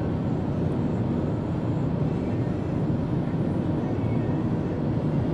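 Steady low rumble of a vehicle, heard from inside the car, with no change in level.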